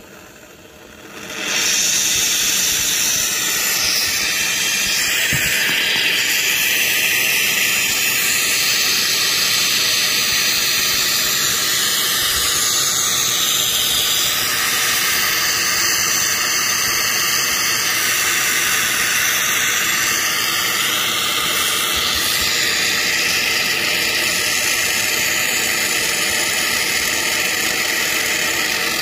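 Can of Great Stuff expanding spray foam discharging into a closed wall cavity: a loud, steady hiss that starts about a second and a half in and runs on unbroken as the can empties.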